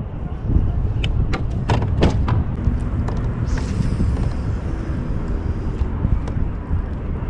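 Wind rumbling on the microphone, with a few sharp clicks and taps about a second in and a brief high whirring hiss in the middle.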